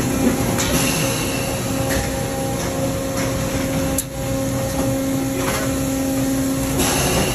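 Steady drone of industrial machinery with a constant electrical hum, and a single sharp click about four seconds in.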